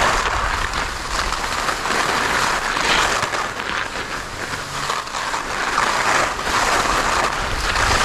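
Skis sliding and scraping over firm, packed snow on a downhill run, with wind noise on the helmet-mounted microphone. The scraping swells and eases with the turns and dips a little around the middle.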